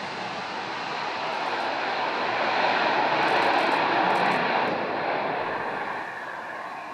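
Saab JAS 39 Gripen's single jet engine at full power in afterburner on a short take-off and climb-out. The jet noise builds to its loudest about three to four seconds in, then fades as the fighter pulls away.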